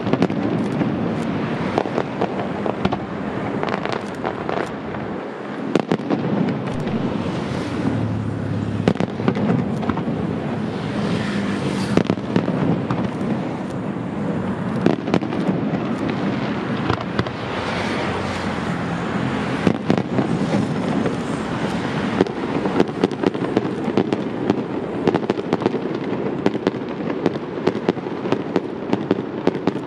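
Aerial fireworks display: shell bursts going off one after another, many sharp bangs in quick succession over a continuous rumbling, crackling bed, with denser crackle in a couple of stretches.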